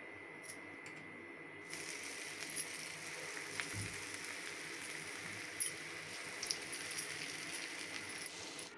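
Urad dal batter balls deep-frying in hot oil in a kadhai: a steady frying sizzle with small crackles, which grows much louder about two seconds in.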